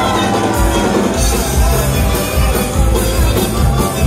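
Live band playing loud music, with a wash of cymbals coming in about a second in.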